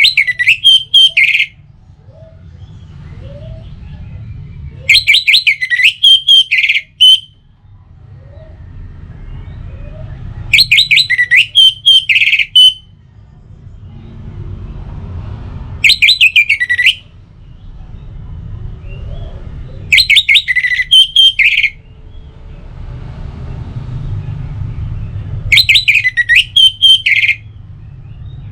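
Orange-headed thrush singing: six short phrases of rapid, high notes, one about every five seconds, over a low steady rumble.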